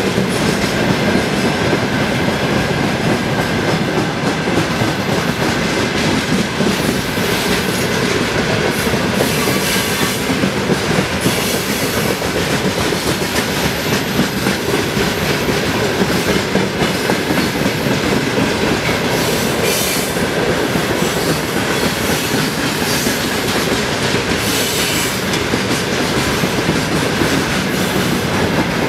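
Long freight train of open gondola wagons rolling past close by, its wheels clattering steadily over the rail joints.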